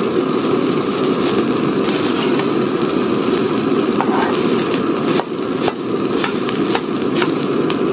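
Steel spatula scraping and clinking against a steel kadhai as fried rice is stirred, with the sharp clinks coming mostly in the second half, over a steady rushing noise from the stove burner under the pan.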